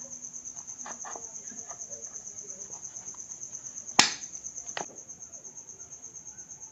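Pliers and a knife clicking against the metal pin of a high-heel tip while it is pried out. There are a few small clicks, then one sharp click about four seconds in and a fainter one just after. A cricket chirps steadily with a fast, even pulse throughout.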